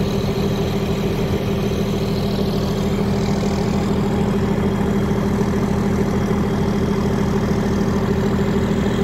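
An engine idling steadily with a fast, even low throb, its pitch unchanging throughout.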